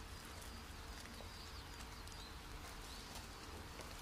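Quiet, steady background hiss and low hum, with a few faint high chirps and a couple of faint clicks.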